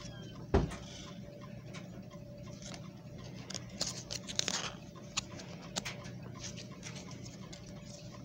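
Handling noises around a plush animated toy: scattered light clicks, ticks and rustles, with one dull thump about half a second in and a brief cluster of clicks around the middle. The toy's song is not playing.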